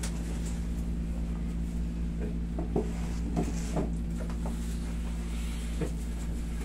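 Steady low room hum with a few short, soft clicks and knocks of hands and small objects being handled, most of them in the middle stretch and one more near the end.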